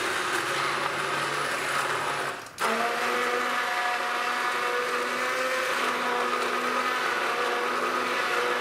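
Hand-held stick blender running in a pan of hot tomato soup, blitzing it smooth. It cuts out for a moment about two and a half seconds in and then starts again.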